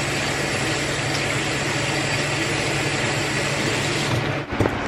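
A motor running steadily with a low hum, cutting off about four and a half seconds in.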